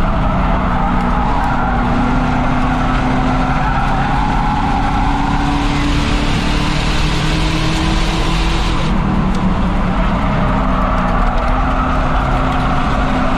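Race car engine heard from inside the car on an oval, pulling with its note slowly rising, then dropping about nine seconds in before climbing again. A steady hiss of tyre and road noise runs under it.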